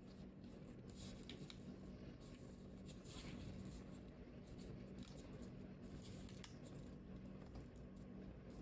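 Faint rustling and scraping of a sheet of origami paper being folded and pressed flat by hand on a tabletop, in short irregular brushes, over a steady low hum.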